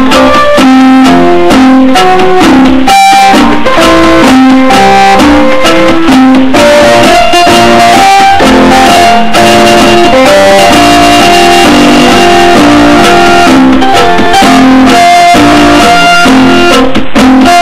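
Portable electronic keyboard playing a melody of separate notes over a lower line, very loud and nearly even in level throughout.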